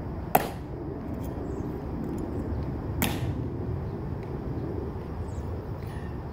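Two sharp clicks, about two and a half seconds apart, over a steady low outdoor rumble: the Tomb Guard sentinel's metal-tapped heels clicking during his drill. The first click is the louder.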